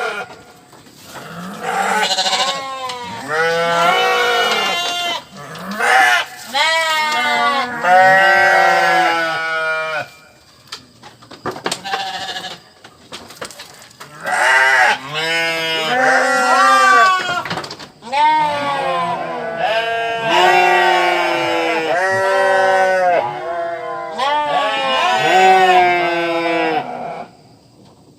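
Several sheep bleating, long quavering calls that overlap one another, with a lull of a few seconds about ten seconds in.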